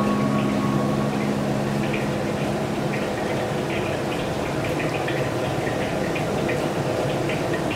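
Steady kitchen background noise with scattered faint crackles, and a low hum that fades out a few seconds in.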